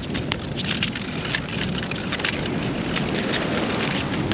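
Steady rushing wind and surf noise on a GoPro action camera's microphone, with many short crackles and taps scattered through it.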